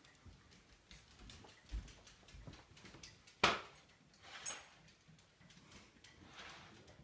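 Small dog's claws clicking on a hardwood floor as it trots away, with a sharp knock about halfway through.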